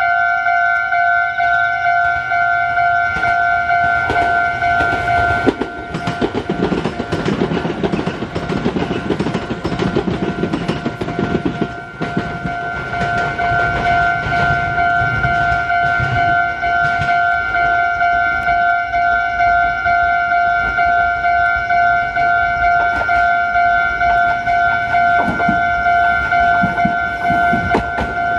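Japanese level-crossing warning bell ringing continuously. A train passes through the crossing from about six to twelve seconds in, its wheels rumbling and clacking over the rails, and rail noise returns near the end.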